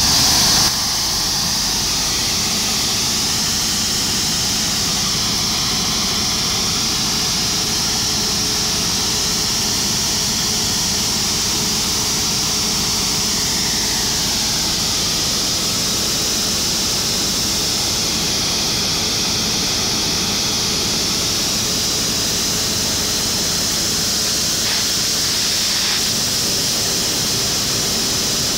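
Steady rush and hiss of a high-pressure water jet from a fire engine's roof-mounted water-and-foam monitor, over the continuous drone of the MAN TGM 18.340 fire engine's diesel running its fire pump.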